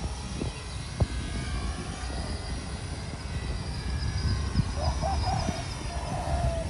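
Micro RC foam plane's small electric motor running faintly overhead as the plane flies past, a thin high whine over a steady low rumble.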